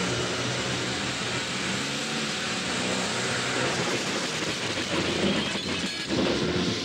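Car engine running hard under a steady rush of road and tyre noise.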